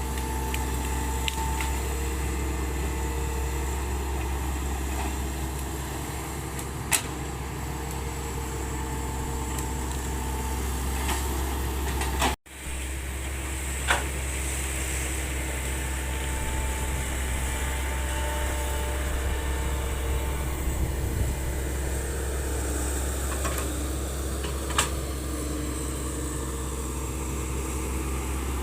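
Hitachi Zaxis 110 excavator's diesel engine running steadily under load, with a hydraulic whine that comes and goes and falls in pitch near the end. A few sharp knocks cut through, and the sound breaks off for an instant about twelve seconds in.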